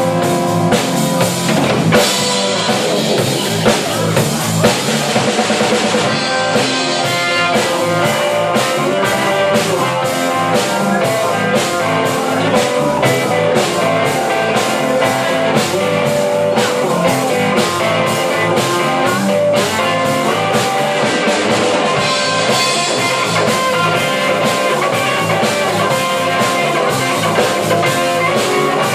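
Live blues-rock trio playing an instrumental passage: electric guitar over a drum kit keeping a steady beat and an electric bass.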